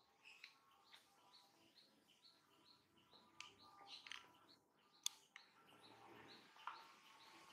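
Faint bird calling: a short high chirp repeated about twice a second, with a few light clicks and one sharp click about five seconds in.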